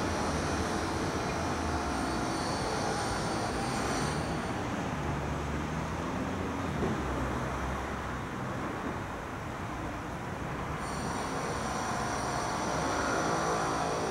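Steady low rumble of distant vehicle noise, with a high, thin ringing of several steady tones during the first few seconds and again in the last few seconds.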